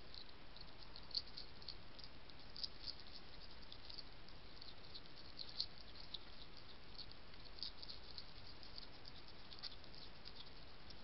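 European hedgehog eating off the ground: faint, irregular high clicks of chewing and crunching, with a few louder snaps.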